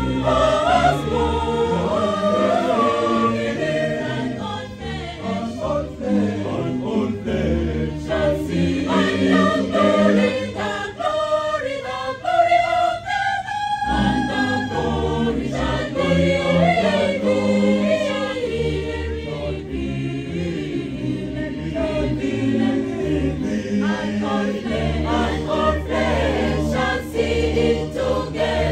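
Mixed choir of women's and men's voices singing a Christian gospel song in harmony. About halfway through, the lower parts drop out briefly and a few held high notes carry on before the full choir returns.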